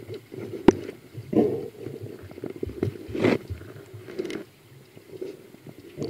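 Muffled underwater noise heard through a camera's waterproof housing: irregular rumbling bursts with scattered small knocks. There is a sharp click under a second in, and the loudest rumble comes about three seconds in.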